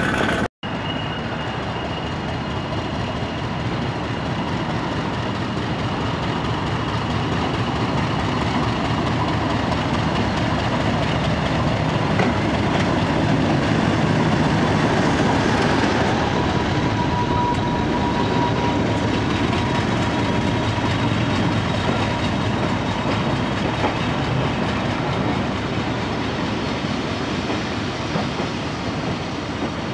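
British Rail Class 50 diesel locomotive and its train of coaches running beside the platform: steady engine and rail noise that grows louder toward the middle and then slowly eases off. A short break in the sound about half a second in.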